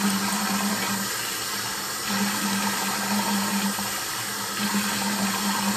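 Bathroom sink tap running steadily as a face is rinsed of cleanser under it: an even rush of water with a low hum that drops out and returns a few times.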